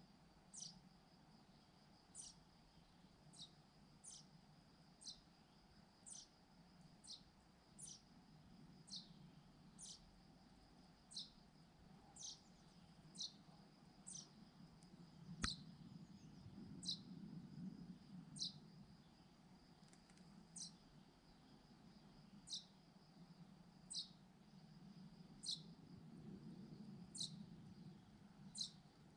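A bird repeating a short, high, falling call about once a second, faint, over a steady high insect drone and a low rumble. One sharp click about halfway through.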